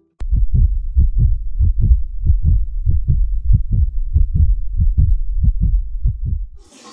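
Heartbeat sound effect: a fast, steady beat of paired low thumps that stops shortly before the end, opened by a single sharp click.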